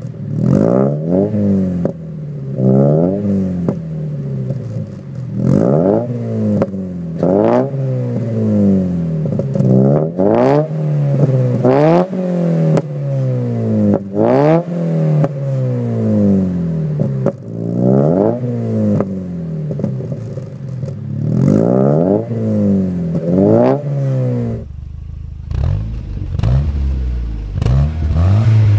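A stationary car's engine revved over and over through its exhaust, each blip rising in pitch and falling back within a second or two. About 25 seconds in it cuts to a different car's engine running lower and steadier, with small revs.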